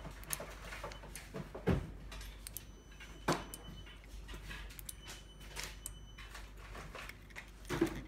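Irregular clicks of the relays on a 4-channel 12V wireless relay receiver switching on and off as the remote's buttons are pressed, along with the small clicks of the remote's buttons. A louder knock near the end.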